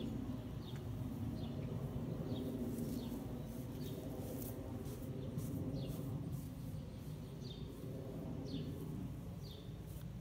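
Outdoor ambience: a bird repeating a short, falling chirp about once a second over a low, steady rumble.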